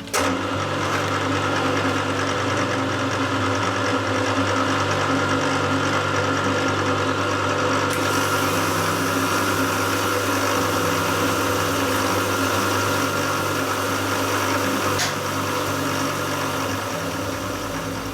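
Milling machine running with its cutter working a 12 mm keyway into the shredder's drive shaft: a steady mechanical whir and grind that starts abruptly. The high end brightens about eight seconds in, and a sharp click comes about fifteen seconds in, after which the noise eases slightly.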